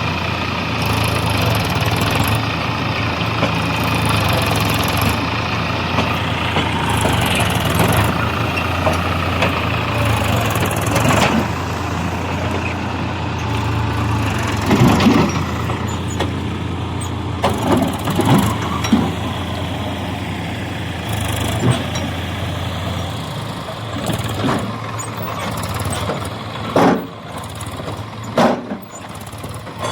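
Diesel engine of heavy machinery running steadily, with several sharp knocks in the second half. The engine's low hum weakens about two-thirds of the way in.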